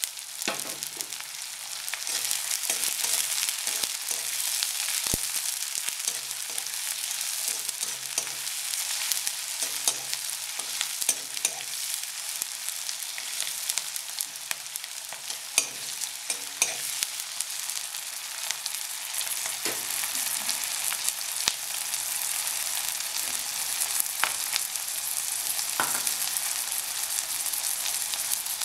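Sliced onions sizzling in hot oil in a metal kadai, with a metal spatula scraping and clicking against the pan as they are stirred now and then.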